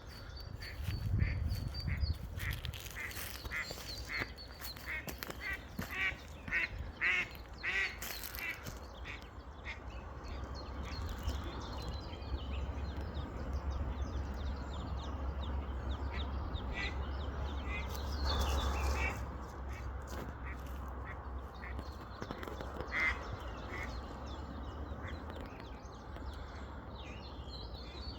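Duck quacking: a run of repeated calls, about two a second, for several seconds, then a few scattered calls, over a steady low rumble.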